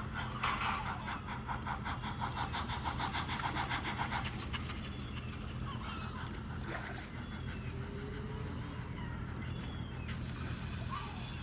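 Steam locomotive chuffing in a quick, even rhythm that fades out over the first four seconds or so as the train departs. Birds chirp after it, over a steady low hum.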